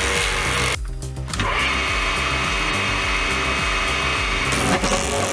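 Two-stroke chainsaw engine running a homemade wood chipper, under background music with a steady beat. The machine sound drops out briefly about a second in.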